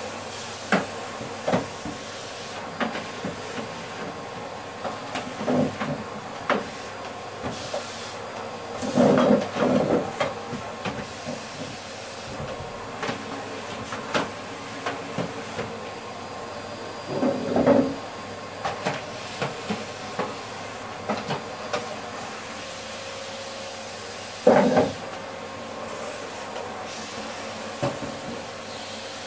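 Canister vacuum cleaner running with a steady hiss as its floor nozzle is pushed back and forth over a rug and floor. Its run is broken by frequent short knocks and three louder bumps.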